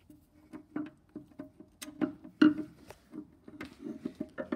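A 3/8-inch ratchet clicking and knocking irregularly on the half-turn drain plug of a plastic oil pan, with the loudest knock about halfway through.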